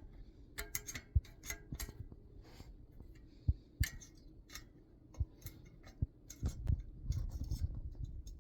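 Metal bicycle spoke being threaded through a rear wheel hub: irregular light metallic clicks and ticks as it catches against the hub flange and neighbouring spokes, with a few dull knocks.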